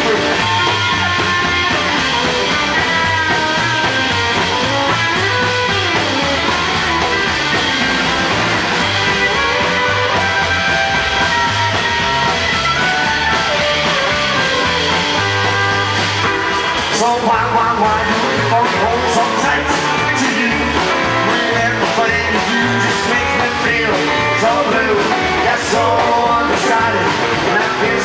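Rockabilly band playing live on electric guitar, acoustic guitar, upright double bass and drums.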